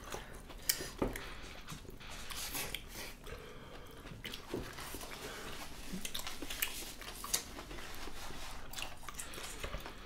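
Close-miked eating: people chewing and biting food eaten by hand, including leafy lettuce salad, with scattered short clicks.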